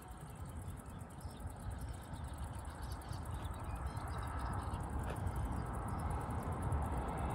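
Distant jet airliner approaching to land, its engine sound slowly growing louder.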